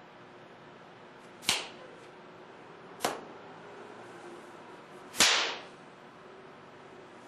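Three sharp hand slaps as the silat hand form juru 1 is performed, about a second and a half apart; the third is the loudest.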